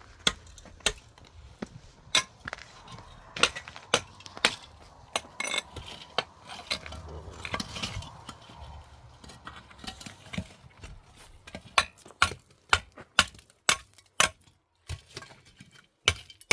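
A metal hand tool clinking and tapping: many sharp, irregular strikes, coming thicker in a quick run about twelve seconds in.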